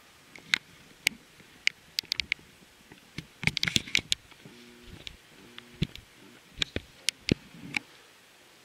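Scattered sharp clicks and light knocks, with a quick cluster of them about three and a half seconds in.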